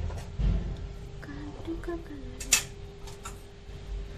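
Kitchen dishes and utensils clinking: a soft knock about half a second in, one sharp clink near the middle and a few lighter ticks, over a steady hum.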